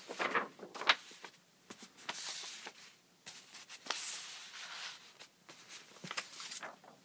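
Sheets of drawing paper handled and slid over one another on a carpet: a few short swells of paper rustling with some light taps and clicks.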